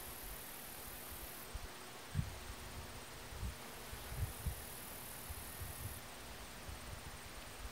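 Faint outdoor background: a steady hiss with a few soft low thumps of wind on the microphone, and a thin high buzz that comes and goes. No clear goldfinch song or call stands out.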